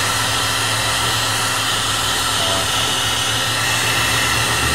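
Old Wagner heat gun running steadily: a constant rush of blown hot air with a low motor hum, softening layers of old paint on a wooden window sash.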